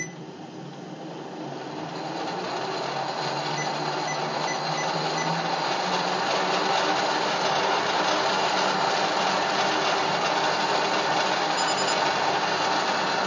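Wood lathe driven by a treadmill DC motor through a motor control board, speeding up over the first several seconds and then running steadily at a higher speed, still under half of full speed. Parts not yet bolted down rattle a little at this speed.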